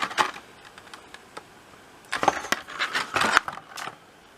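Product packaging being picked up and handled: scattered clicks and rustles, with a busier flurry of handling noise about two seconds in.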